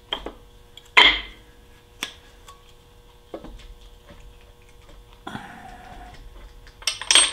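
Scattered sharp metal clicks and knocks, with a short scrape a little past five seconds, as the two halves of a Porsche 912 engine crankcase are worked apart by hand. The loudest clicks come about a second in and in a quick cluster near the end.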